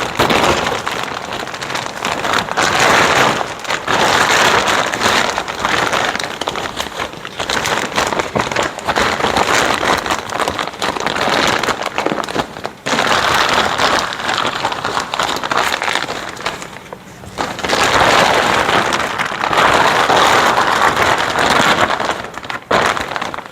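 Heavy reinforced plastic tarp greenhouse cover rustling and crinkling loudly as it is pulled up over the frame, in surges that ease off briefly twice.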